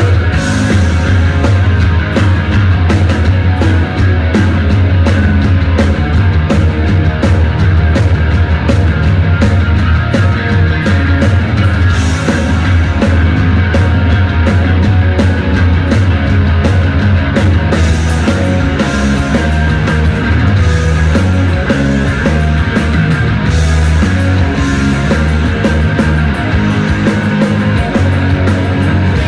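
Live rock band playing loud, with electric guitar, a heavy bass line and a steady drum beat.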